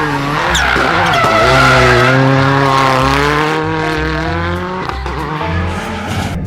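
Racing car engine revving hard. Its pitch dips twice, climbs steadily and breaks off about five seconds in.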